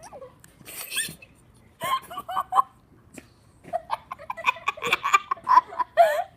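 Children laughing and giggling with high, wavering voices, in a short burst about two seconds in and a longer one from about four seconds in.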